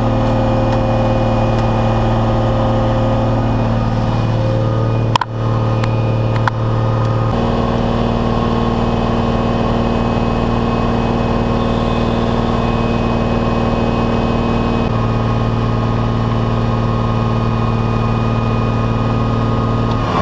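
Heavy diesel truck engine idling steadily close by, its tone shifting slightly twice. A single sharp knock is heard about five seconds in.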